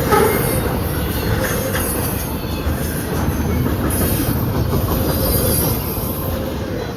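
CSX intermodal freight train's cars rolling past on the rails, a steady rumble with a thin, steady wheel squeal, starting to fade near the end as the train moves away.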